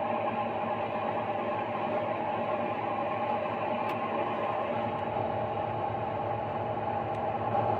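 Steady drone of farm machinery running.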